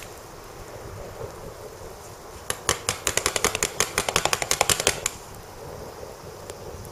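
Charcoal fire crackling under a brush cutter muffler set on a wire grill: a quick, irregular run of sharp pops lasting about two and a half seconds from about a third of the way in, over a faint steady hiss.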